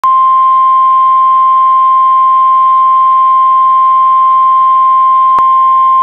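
NOAA Weather Radio 1050 Hz warning alarm tone: a single steady, loud tone, with a brief click about five seconds in. It signals that a severe weather warning is about to be broadcast.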